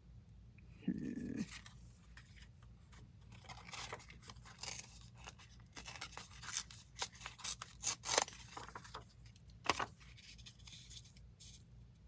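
Paper torn by hand in a series of short rips, with rustling as it is handled: a strip is being torn off a paper receipt to make it narrower.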